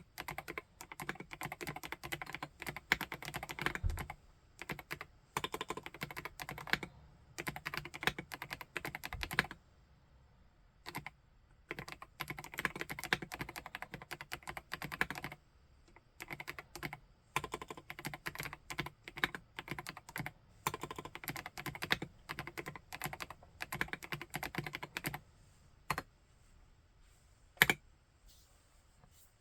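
Typing on a PK x BIOI Command 65 custom mechanical keyboard with SP-Star RedBlue switches: fast runs of keystrokes broken by short pauses, with one loud single keystroke near the end.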